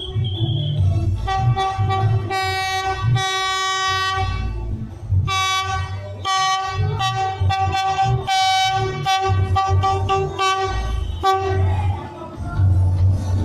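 Locomotive air horn sounding a long blast starting about a second in, then a string of shorter toots, over the low rumble of the train.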